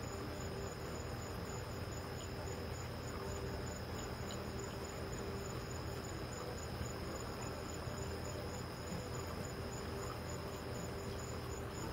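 Crickets chirping steadily: an even high trill with a rapid, regularly pulsed chirp above it, over a low steady hum.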